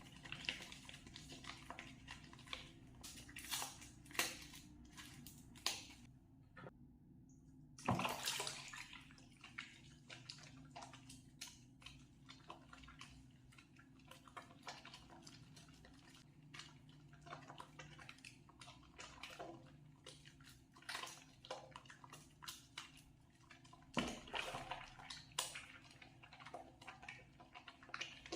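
A wet bar of soap being lathered by hand: soft, continuous wet squishing and crackling of foam, with louder rubbing bursts about eight seconds in and again near the end.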